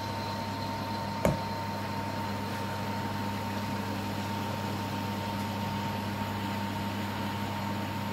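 Date-molasses batter deep-frying in hot oil in an iron kadai: a steady sizzle over a constant low hum, with a single click about a second in.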